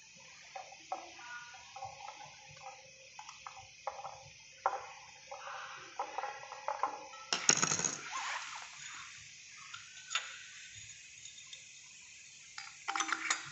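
Metal tools and parts clinking and knocking as they are handled, with short ringing taps, a louder clatter about seven and a half seconds in and another burst of clinks near the end.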